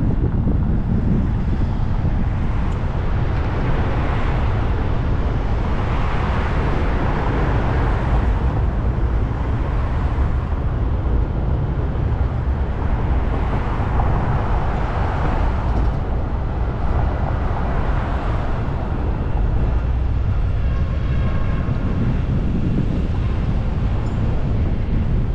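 Car driving in city traffic: a steady low rumble of road and wind noise, with tyre hiss swelling and fading several times.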